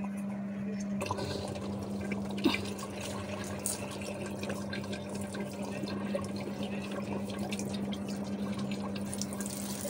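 Washing machine humming steadily as it washes. From about a second in, water runs and splashes onto a tiled floor.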